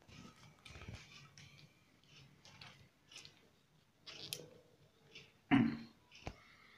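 Handling noise of a smartphone being fitted into a tripod's plastic phone-holder clamp: scattered light clicks and rustles of plastic, with a louder rustle about five and a half seconds in and a sharp click just after.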